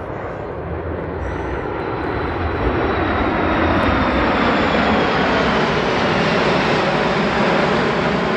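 Jet engine noise from a formation of fighter jets flying past. It builds over the first few seconds and then holds steady, with a faint high whine sliding slowly down in pitch.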